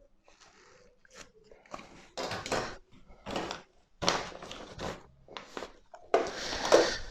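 A series of short scraping, crinkling bursts from hands and pliers working on wire crimp terminals. The longest and loudest burst comes near the end.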